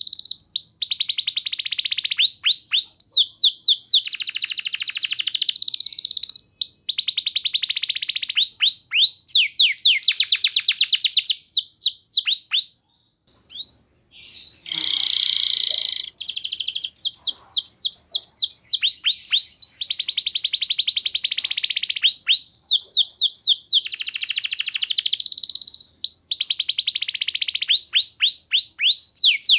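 Domestic canary singing a long, loud song of fast rolling trills and runs of repeated falling chirps. The song breaks off briefly about thirteen seconds in, then carries on.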